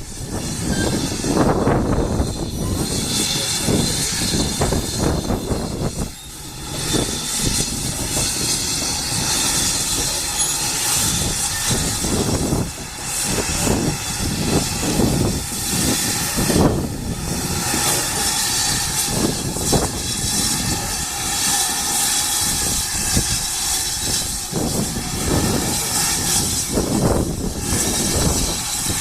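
Great Western steam locomotive working slowly on the line, with a regular beat of exhaust chuffs under the hiss of steam.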